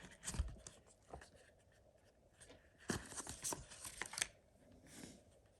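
A phone-case box being opened and handled: light scrapes, then a cluster of sharp clicks and tearing rustles about three seconds in.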